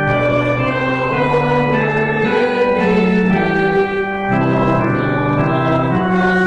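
Organ playing a hymn tune in slow, held chords that change every second or so.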